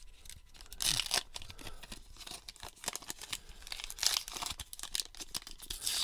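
Baseball card pack wrapper being torn open by hand, in irregular rips and crinkles; the loudest rips come about one second in and about four seconds in. The wrapper rips apart unevenly rather than along a clean seam.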